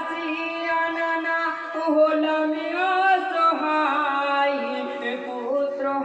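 Male voices singing a Bengali marsiya, a mourning elegy for Imam Husayn, in a slow melody of long held notes that move in steps.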